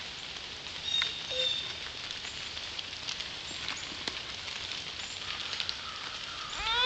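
Steady hiss of light rain falling on pavement, with scattered faint taps. A young child's short wordless vocal sound rises and falls near the end.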